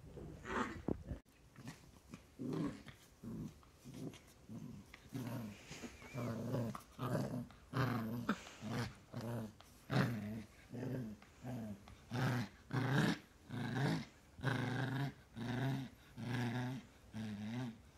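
A puppy growling in a long run of short, low growls, about one and a half a second, starting about two seconds in.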